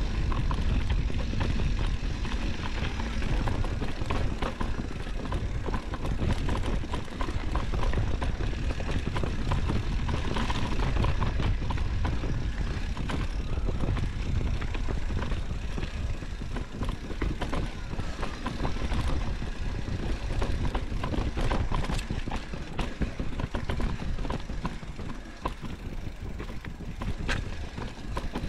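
Mountain bike ridden over dirt singletrack: wind rumbling on the camera microphone, with tyre noise and scattered clicks and rattles from the bike over bumps. It gets a little quieter near the end.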